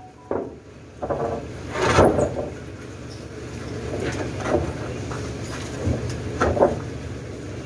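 A truck crane's engine runs steadily with a low hum, under a series of knocks and scrapes as precast concrete planks and wooden poles bump together while a plank is guided into place. The loudest knock comes about two seconds in, and a few more follow near the end.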